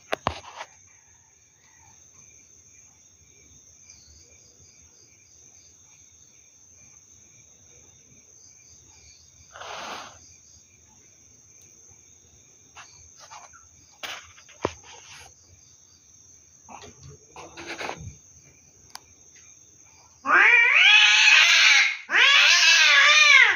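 Cat yowling twice near the end, two long loud calls that each rise and fall in pitch: the drawn-out caterwaul of cats in a tense standoff. Before that it is mostly quiet, with only a few faint short sounds.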